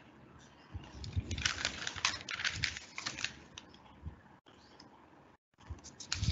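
A dense run of quick clicks and rustling with low knocks for a couple of seconds, then sparser clicks. The sound cuts out briefly twice near the end.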